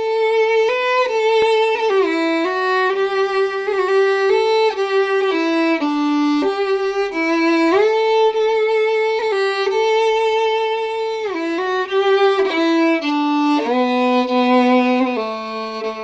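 Solo fiddle playing a slow Celtic melody, one line of notes with vibrato on the held ones. A low held note sounds beneath the melody in the last couple of seconds.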